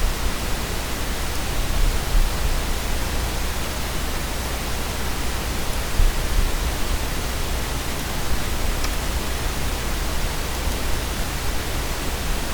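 Steady hiss of background noise with a low hum underneath, and a couple of faint clicks in the middle.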